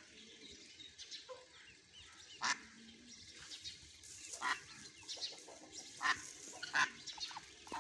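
A mother duck and her ducklings calling: faint, high peeping throughout, with about four short, loud calls spread through.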